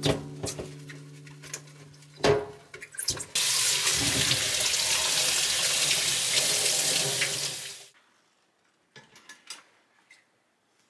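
Tap water running hard into a kitchen sink and over a glass air-fryer basket for about four and a half seconds, then shut off abruptly. Before it, a few sharp knocks as the glass basket is scrubbed and handled in the sink; light clicks near the end as it is set down on a dish rack.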